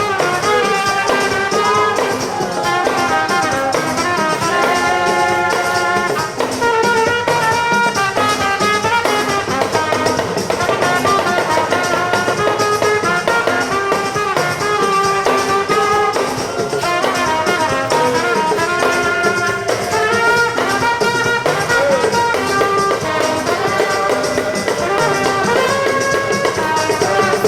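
Music led by brass horns playing a melody over a full backing.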